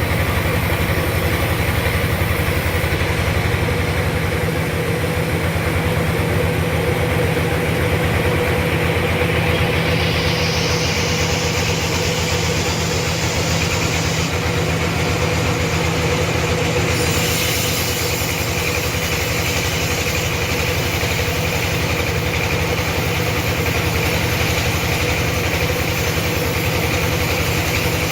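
Sawmill machinery running steadily: a continuous mechanical hum with a fast, even low pulse and a steady mid-pitched tone.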